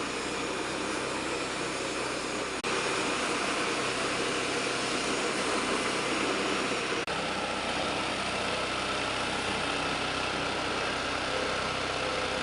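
Crop-residue grinding machine and its engine running steadily, a dense even mechanical noise, broken by two very short breaks.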